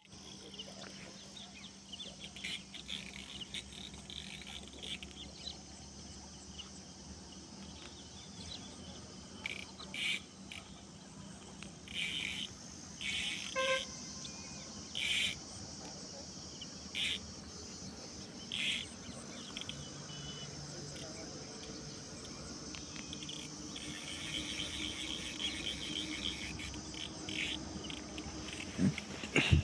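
Insects chirring in a steady high-pitched chorus, with short louder calls every second or two through the middle. A sharp knock near the end.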